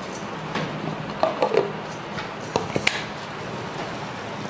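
A few light knocks and clinks of a stainless-steel mixer-grinder jar and its lid being handled and set down, in two small clusters, with a low steady hum underneath.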